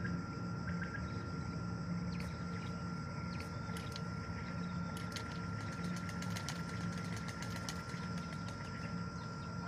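A steady low engine-like hum with a thin, steady high tone above it and scattered faint ticks. No quail is calling.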